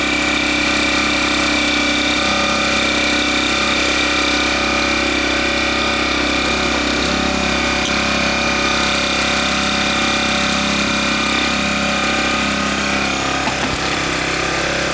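Parkside PGI 1200 B2 inverter generator's small four-stroke petrol engine running steadily, its note shifting slightly near the end.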